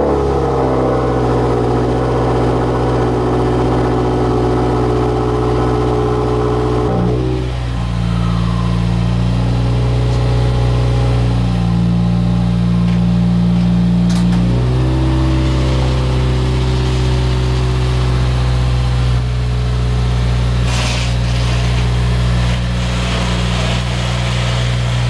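Subaru WRX engine running steadily at idle. Its pitch settles lower about seven seconds in, then shifts again about halfway through.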